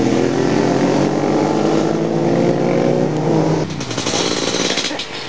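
Vehicle engines accelerating, heard from inside a car cabin, one steadily rising engine note. About three and a half seconds in, the sound cuts abruptly to motorcycle engines heard in the open street.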